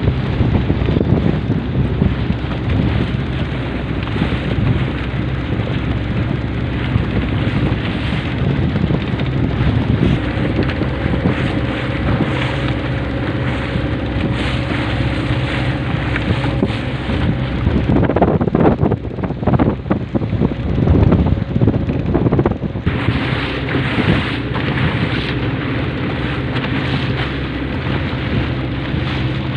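A Pongrass motorboat's engine running steadily under way, with wind buffeting the microphone and water rushing along the hull on choppy water. The sound turns rougher for a few seconds a little past the middle.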